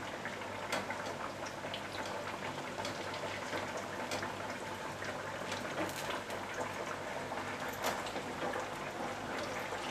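Aluvadi slices deep-frying in hot oil in a steel kadai: a steady sizzle with a few sharp pops and clicks as a wire skimmer turns them over.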